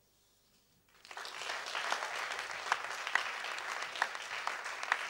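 Audience applause that starts about a second in, a dense patter of hand claps with a few sharper single claps standing out.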